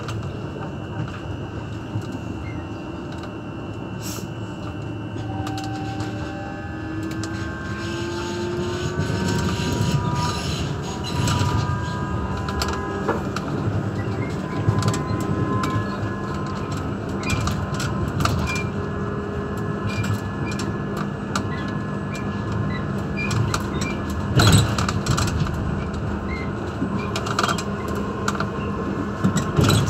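Class 399 electric tram-train running on the rails, heard from the driver's cab: a steady hum and rumble of the wheels and running gear, with a whine of several tones rising in pitch during the first third. Sharp knocks from the wheels on the track come now and then, the loudest about three-quarters of the way through and another near the end.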